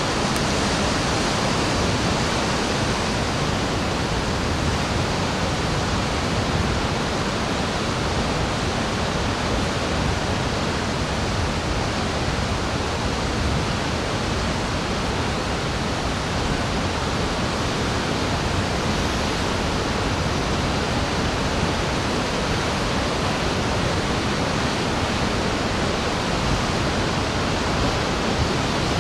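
Ocean surf heard as a steady, even rush of noise with no separate waves rising and falling.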